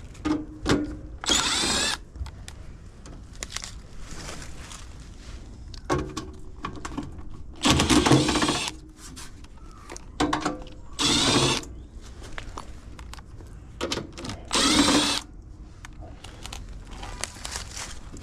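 Handheld power drill/driver run in repeated short bursts, four of them longer at about a second each with several brief blips between, working a small nut that is wedged in place.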